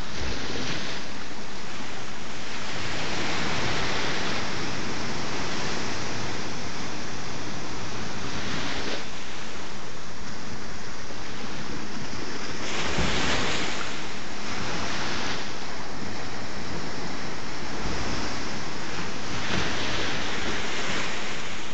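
Sea waves washing in against rocks at the water's edge: a steady rush of surf that swells louder several times, most strongly a little past halfway and again near the end.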